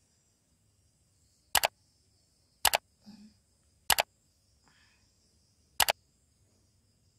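Four mouse-click sound effects, each a quick double click, spaced over about four seconds. They go with an animated like, subscribe and notification-bell button overlay being clicked.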